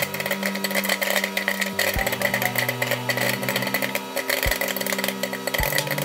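Microwave oven running with a steady hum while a bag of microwave popcorn pops inside: rapid, irregular pops, with a few deeper thuds among them.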